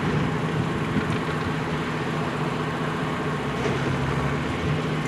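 Farmall 706 pulling tractor's engine running steadily at low speed while the tractor creeps forward ahead of its pull, the engine note holding an even pitch.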